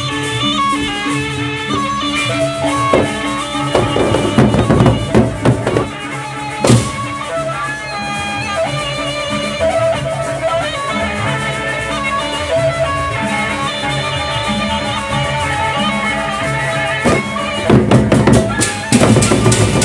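Sasak gendang beleq gamelan ensemble playing: a melodic line over steady low tones, with heavy drumming breaking in about four seconds in and again near the end.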